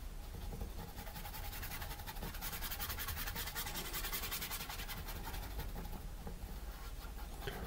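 Paintbrush scrubbing acrylic paint back and forth on canvas: a soft, rapid scratching rustle of short strokes, heaviest in the middle.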